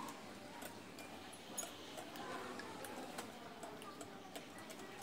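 Metal fork beating eggs and sugar in a ceramic bowl: light, irregular ticks of the fork against the bowl.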